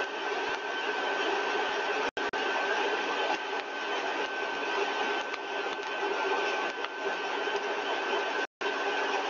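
Laboratory axial compressor stage (rotor and stator) running steadily at 80% of design speed, about 5,780 rpm. It makes a steady rush of air with a high whine held at one pitch. The audio cuts out briefly twice, about two seconds in and near the end.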